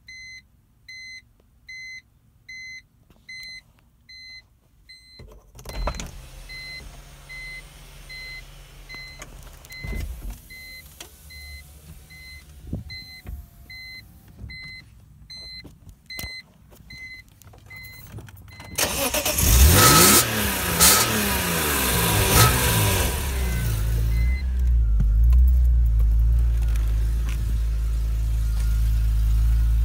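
A car's warning chime beeping over and over, with a few dull knocks. About 19 s in, the 2001 BMW M3's straight-six starts, revs rise and fall a few times, then it settles to a steady idle.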